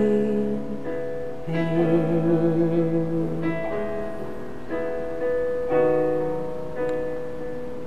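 Solo acoustic guitar playing the slow closing chords of a ballad, each chord struck and left to ring and fade.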